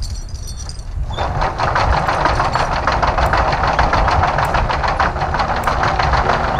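An engine running with a rapid, even clatter that comes in about a second in, over a low rumble.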